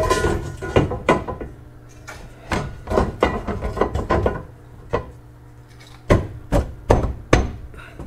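Steel subframe connector knocking and clunking against a 1968 Mustang's chassis rail as it is worked by hand up into place: a run of sharp knocks in uneven clusters, the loudest few near the end.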